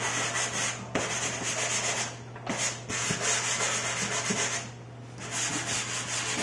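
Hard pastel stick scraping across UART sanded pastel paper in quick strokes, a scratchy rasp broken by two short pauses about two seconds and about five seconds in.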